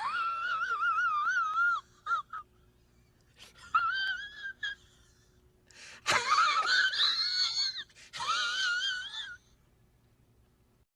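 A high-pitched wavering wail with heavy vibrato, in four drawn-out phrases with short gaps between them.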